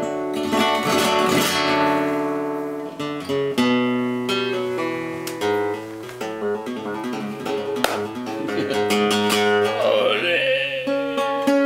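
Nylon-string flamenco guitar played fingerstyle: a flowing run of plucked notes and chords that ring on.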